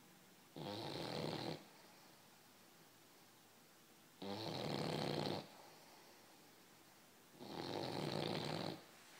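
A dog snoring: three snores, each about a second long, coming roughly three and a half seconds apart.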